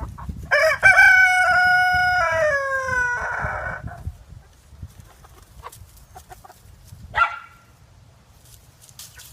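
Rooster crowing once, loudly: a long call of about three seconds that sags in pitch and turns hoarse at the end. About seven seconds in comes a single short call.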